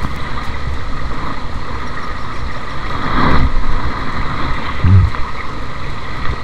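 Small stream rushing over rocks, a steady noisy wash, with two brief louder sounds a little past the middle.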